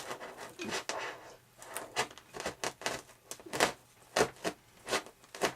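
X-Acto hobby knife cutting, its blade scraping through the material in short, irregular strokes, a few each second.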